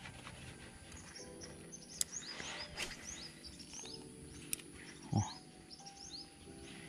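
Small birds chirping in quick series of short rising notes, several a second, over faint sustained tones. A few sharp clicks and a low thud about five seconds in break through.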